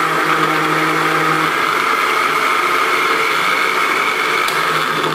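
Electric blender motor running steadily with a constant whine, blending mango pieces with a little milk, then switched off and cutting out abruptly at the very end.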